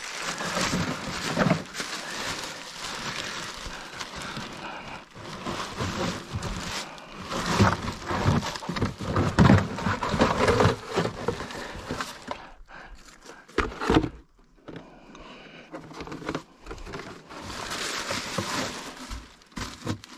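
Irregular rustling, scraping and clattering of someone moving about and handling things, with a sharp knock about two-thirds of the way through.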